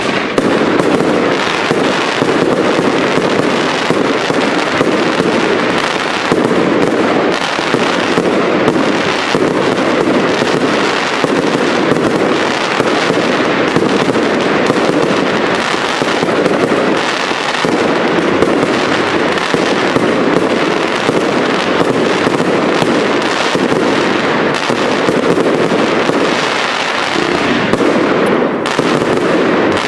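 Professional display fireworks: a dense, unbroken barrage of bursting shells and rapid crackling.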